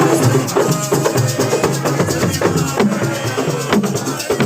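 Loud festive music driven by fast, rhythmic drumming with rattling, shaker-like percussion.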